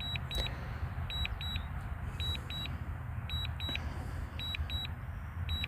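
DJI Mavic Air 2 remote controller beeping in short high double beeps, a pair about once a second: the controller's alert while the drone is on Return-to-Home. A low, steady rumble sits beneath the beeps.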